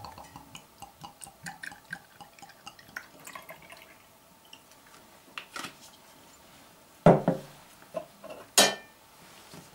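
Pear brandy poured from a glass bottle into a small crystal glass, a thin trickle with quick little drips and ticks. Then a few sharp knocks on the counter as the bottle and glass are set down, the loudest about seven seconds in.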